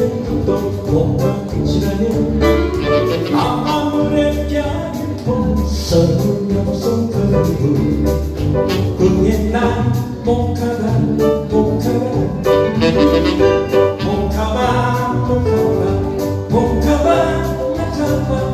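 Live instrumental music from a tenor saxophone, electric guitar and keyboard trio: a saxophone-led melody over a steady bass beat.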